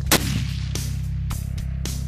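A single hunting rifle shot, sharp and loud, a moment after the start, over background music with a steady beat.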